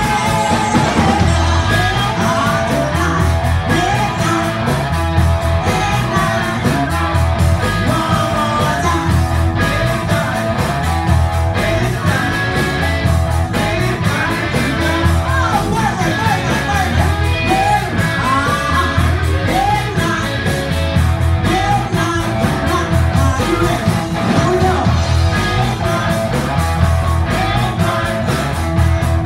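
Live rock band playing loudly through a PA: drum kit keeping a steady beat, electric guitar, and singing over a microphone.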